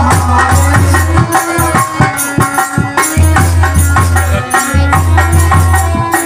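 Loud Rajasthani folk devotional music for a Tejaji khel: a melody carried over a heavy bass, with steady drumming and rattling percussion.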